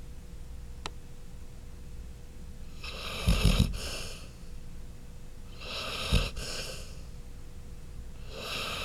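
Labrador retriever snoring in its sleep: three snores about three seconds apart, each a low rattling breath with a breathy hiss, the last one beginning near the end.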